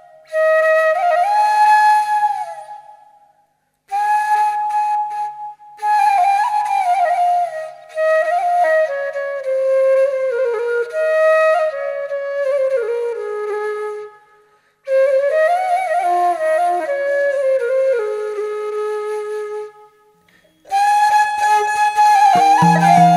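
Background music: a slow solo flute melody played in phrases, many of them stepping downward, with brief pauses between phrases.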